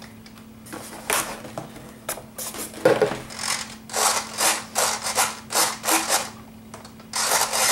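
Servos of a Firebird Delta Ray RC plane buzzing in a series of short bursts as the control surfaces are moved up, down, left and right from the transmitter during a control check, with a longer burst near the end.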